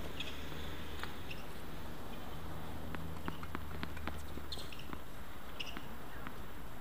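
Lull between tennis points on an outdoor hard court: scattered light taps, footsteps and a few short squeaks, over a steady low hum.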